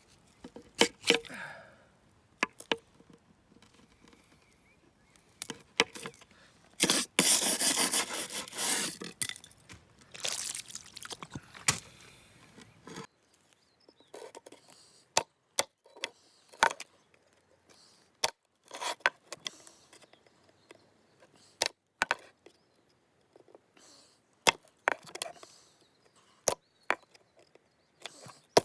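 Hand work on rusty metal pliers: scattered sharp clicks and knocks of tool and pliers against the work surface, with harsh scraping for a couple of seconds about seven seconds in and again a little later.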